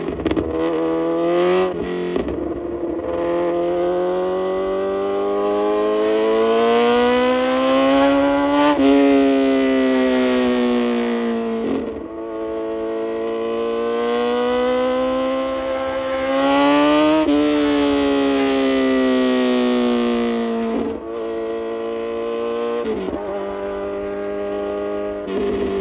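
Kawasaki Z900's inline-four engine through an aftermarket full exhaust system, revving up hard through the gears with quick breaks in pitch at each upshift, twice over. Then the revs fall away and it settles to a steady idle near the end.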